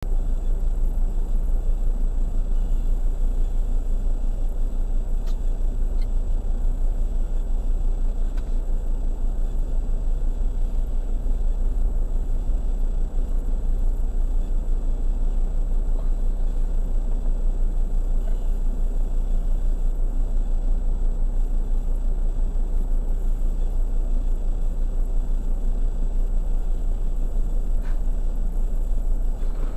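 Steady low rumble that stays even throughout, with faint humming tones and a few faint clicks.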